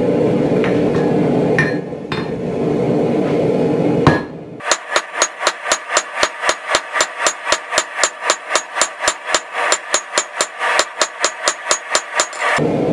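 Hand hammer forging a red-hot knife blank on a steel anvil: a long, even run of ringing blows, about four to five a second, starting a few seconds in and stopping shortly before the end. Before and after the blows, a steady rushing noise.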